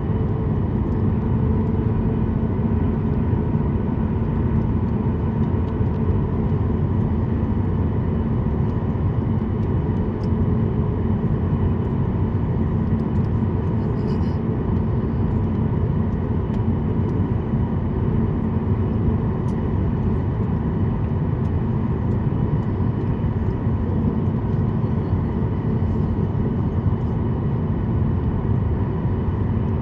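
Steady cabin rumble of a Boeing 737 MAX 8's CFM LEAP-1B jet engines running, heard from inside the passenger cabin, with a few steady tones over the deep roar.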